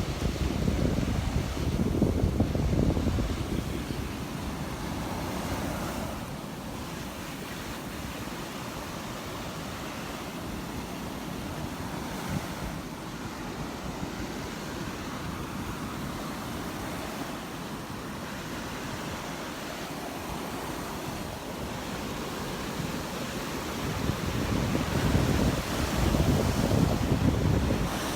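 Surf washing onto the beach in a steady hiss, with wind buffeting the microphone in heavier gusts near the start and again near the end.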